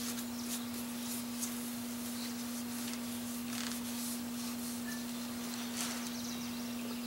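Cloth pad being wiped over a sewing machine's bed, laying on shellac in soft rubbing strokes, over a steady low hum.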